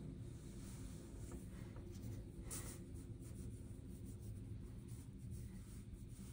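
Faint scratchy strokes of a small round watercolor brush across paper as paint is laid on, with one slightly louder stroke about two and a half seconds in, over a low steady hum.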